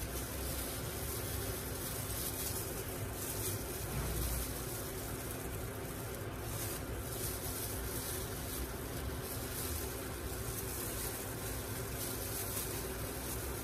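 Spring rolls deep-frying in hot oil, a steady sizzle, with a constant low hum underneath.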